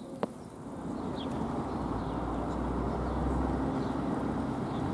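A short click just after the start. Then a road vehicle's low engine rumble and tyre noise grow steadily louder as it approaches.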